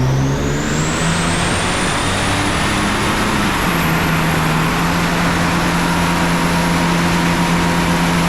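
Nissan RB30 straight-six in a VL Commodore running hard on a chassis dyno. A steady engine note sounds under a thin high whine that climbs over the first few seconds and then holds.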